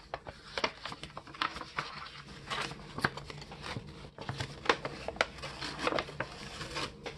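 Stiff brown kraft paper and cardboard packaging being handled and unfolded by hand: irregular rustling and crinkling with many sharp little clicks and scrapes.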